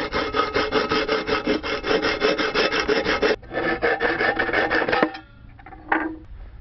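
Hacksaw blade sawing through a thin steel food can in quick, rapid rasping strokes, with the can's metal ringing along. The sawing breaks off briefly a little over three seconds in, starts again, and stops about five seconds in.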